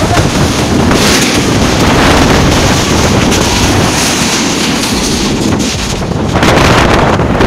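Violent storm wind blasting across the microphone in a loud, continuous rush that eases briefly about six seconds in before surging again.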